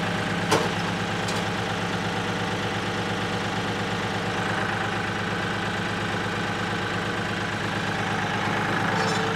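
Kioti compact tractor's diesel engine idling steadily, with a couple of light clicks in the first second and a half.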